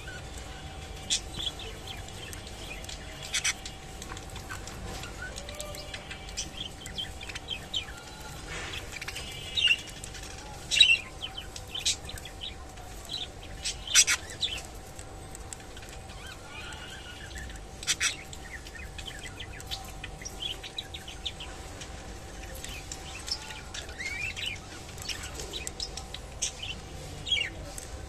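Budgerigars chirping and chattering on and off, short high calls and warbles with a few louder sharp calls scattered through, over a faint steady hum.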